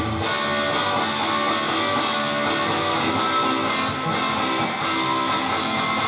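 Electric guitar playing strummed chords with a driven, gained-up tone, on the Emerald single coil of a Lace Sensor dual pickup. The chords ring on continuously under a steady run of pick strokes.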